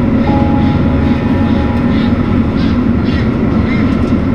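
Loud, steady machinery din of a poultry slaughter line, with the overhead shackle conveyor carrying ducks along. A faint steady whine rides over the low rumble.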